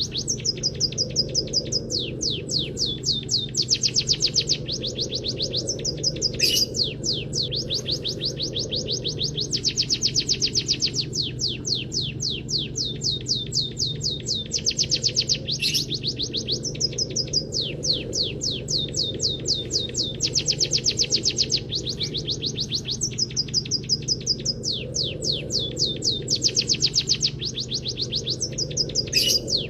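Cage-bird song recording of munia song filled with canary-style phrases: fast, unbroken trills of high, sharp chirps, with brief breaks every few seconds, over a steady low hum.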